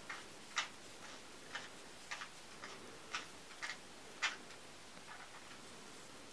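Two 3 mm metal knitting needles clicking lightly against each other as plain knit stitches are worked, in an irregular run of about one or two clicks a second that grows fainter after about four and a half seconds.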